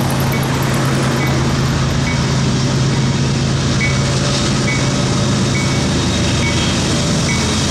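CSX freight train approaching behind GE Evolution-series diesel locomotives, their engines a steady low drone under a general rumble. A short high ding repeats a little more than once a second throughout.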